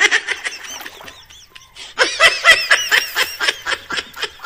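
A person laughing in two runs of quick, pitched ha-ha pulses, the second louder run starting about two seconds in.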